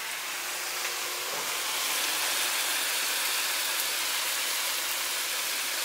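Chicken pieces and spicy sausage frying in a skillet: a steady sizzle.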